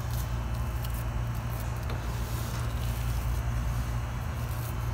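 Steady low hum, with a few faint light clicks of a spoon scooping mashed potato filling onto rolled dough.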